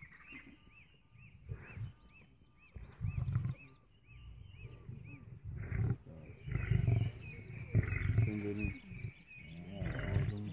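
Male lions growling low in repeated bursts while feeding on a carcass, with a rasping snarl about eight seconds in. A bird chirps repeatedly in the background.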